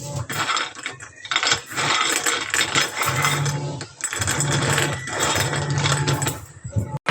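Kitchen clatter: repeated metallic clinks and knocks of utensils and dishes over a steady low background sound.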